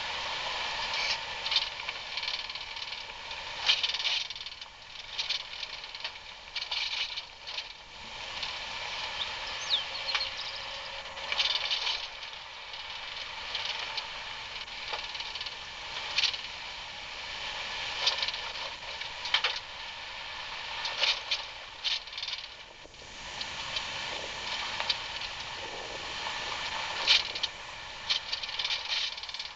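Vehicle driving down a rough dirt trail: a steady hiss with frequent irregular rattles and knocks.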